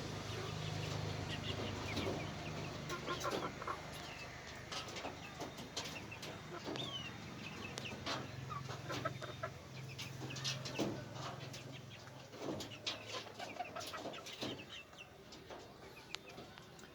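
Chickens clucking and chirping in short, scattered calls, over a low steady hum that comes and goes.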